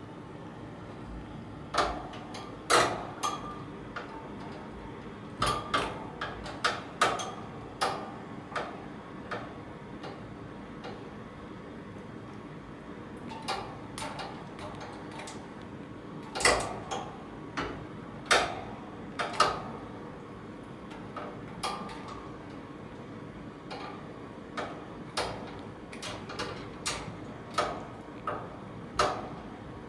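A metal cage key hanging on a chain clinking against the wire bars of a pet cage as a cat bats and bites at it: irregular sharp clinks, often several in quick succession, with pauses of a few seconds between.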